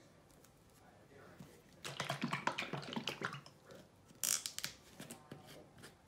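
Light clicks and taps of small objects being handled, coming in a quick cluster from about two seconds in. A brief hissing rustle follows a little after four seconds, then a few more ticks.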